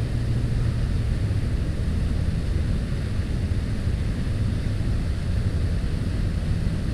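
Steady low rumble of outdoor background noise with no distinct event.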